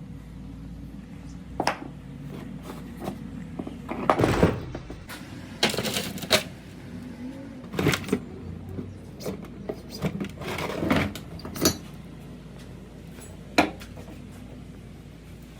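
Metal parts and tools being handled during gearbox work: irregular clinks, clicks and knocks, some in quick clusters, over a steady low hum.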